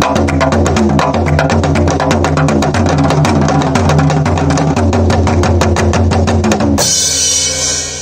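African talking drum and Indian folk percussion played together in a fast, even rhythm over a steady deep bass tone. The drumming stops about seven seconds in on a final crash that rings and fades.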